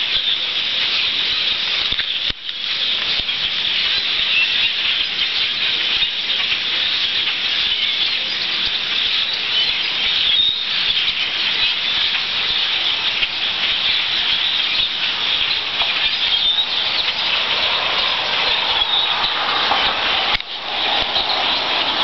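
A huge flock of birds passing overhead: countless calls and wingbeats blend into one steady, high-pitched din. It briefly drops out about two seconds in and again near the end.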